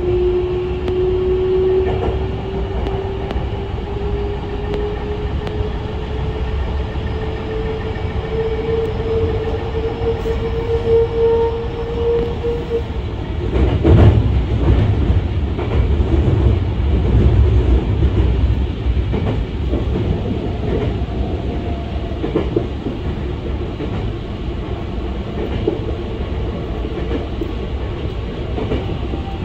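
Hankyu 9000 series electric train running: the traction motors' whine rises steadily in pitch for about the first thirteen seconds as the train gathers speed, then cuts off. After that, low wheel-on-rail rumble with scattered clicks over rail joints, loudest just after the whine stops.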